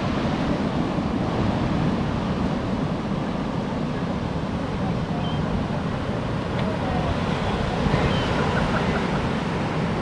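Heavy storm-swell surf breaking and washing up the beach, a steady rush of noise, with wind on the microphone.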